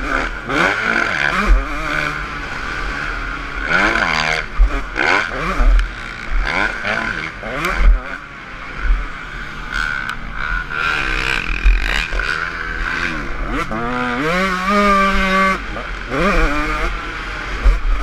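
Motocross dirt bike engine revving hard and dropping back again and again as the rider works through the gears, with a long climbing rev about three quarters of the way in. Wind buffets the microphone and knocks and clatter come from the rough track.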